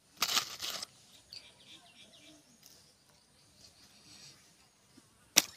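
Quiet background with faint bird chirps, a short rustle just after the start, and a few sharp clicks near the end.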